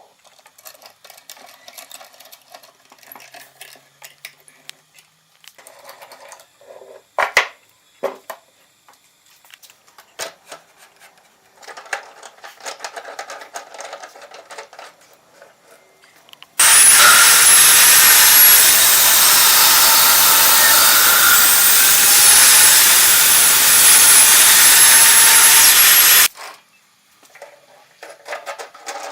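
A power tool running loud for about ten seconds, starting and stopping abruptly, with a high whine over a dense noise. Before and after it there are quieter scrapes, clicks and knocks of wood and tools being handled.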